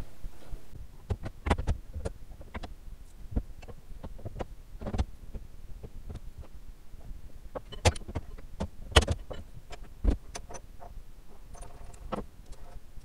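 Irregular metallic clicks and knocks from hands-on assembly of an 1885 tower clock's quarter-chiming barrel mechanism, a few of them sharper and louder than the rest.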